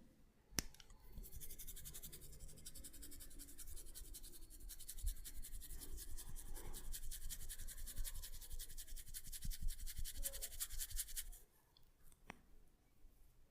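Hair being rubbed and twisted between the fingers in 'hair cracking', giving a dense, rapid crackle that runs for about ten seconds and stops suddenly. A single sharp click comes just before the crackle starts and another just after it stops.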